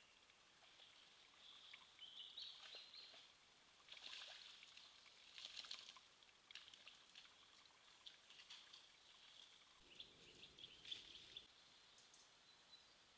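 Faint woodland ambience: small birds singing, with soft rustles and crackles scattered through it.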